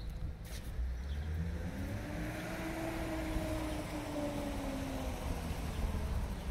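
A car passing by: its tyre and engine noise swells to a peak about halfway through and fades away, the engine's pitch dropping as it goes past.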